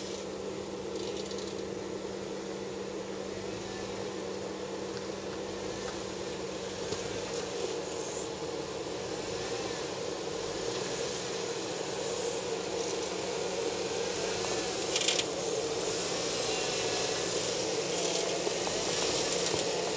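Jeep Wrangler Unlimited (JKU) engine running at crawling speed as it climbs over a dirt and rock mound, getting gradually louder as it comes closer, with a brief sharp clatter about three quarters of the way through.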